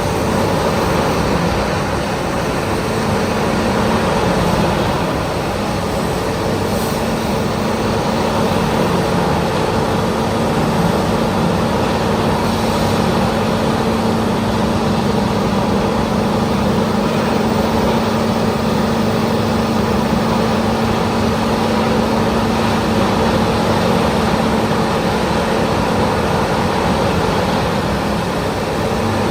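Peterson 5710E horizontal wood grinder running steadily: a loud, even machine noise with a constant engine hum through it.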